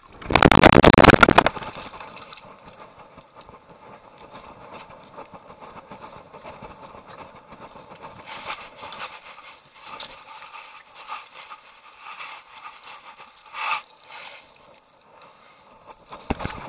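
Water splashing loudly for about a second as an Akita comes out of a shallow creek, then its paws running over dry leaf litter, with rustling and scraping from the jostled camera and one sharper knock later on.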